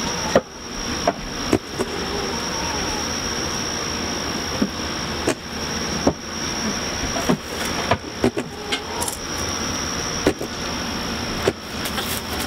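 A steady mechanical hum with a thin high whine, broken by a dozen or so irregular sharp clicks and knocks.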